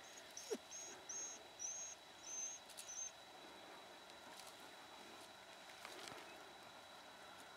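A run of about eight short, high whistled calls, evenly spaced at roughly three a second, which stop about three seconds in; about half a second in comes a brief lower sound that slides downward. Behind them a faint steady high whine and quiet outdoor background.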